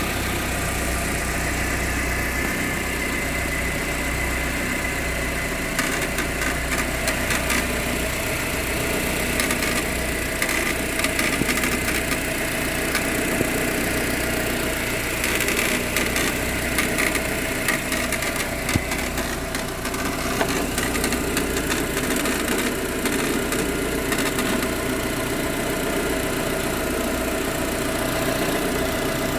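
Proton Exora's 1.6-litre CamPro CPS four-cylinder engine idling steadily, with a rattle that comes and goes in clusters of quick clicks. This is the rattling noise the owner cannot yet explain and is asking how to fix.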